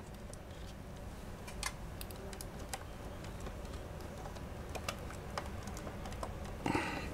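Scattered light clicks and taps of hands handling a GRiD 1520 laptop, its keys and case, irregular and a second or so apart, over a low steady hum.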